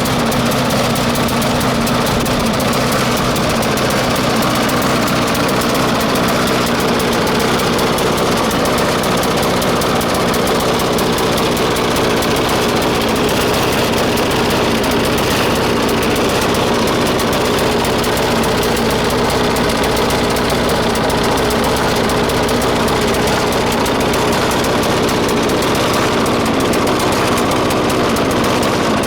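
Murray push mower's 4 HP Briggs & Stratton engine running steadily on a raised idle. The owner says it is not getting enough fuel.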